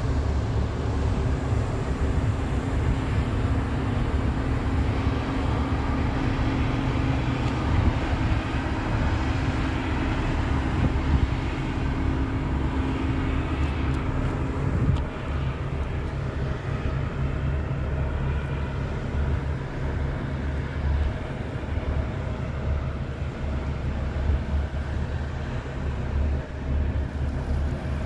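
The engines of the departing KMP Aceh Hebat 2 ro-ro ferry drone as a steady hum that fades out about halfway through. Heavy wind rumble on the microphone runs underneath.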